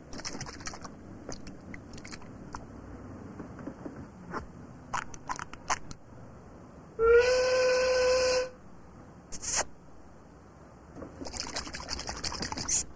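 Cartoon steam-whistle sound effect: one loud whistle about a second and a half long, sliding up slightly as it starts, about seven seconds in. Soft scattered clicks come before it, and a hissy rattle comes near the end.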